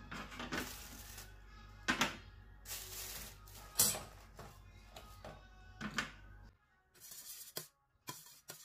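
Oyster shells clinking and knocking on a metal baking tray as they are set down and shifted, a sharp click every second or so, over faint background music.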